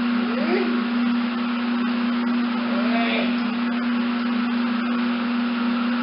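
A steady, unbroken mechanical hum over a constant hiss, with a couple of faint short whine-like glides about half a second and three seconds in.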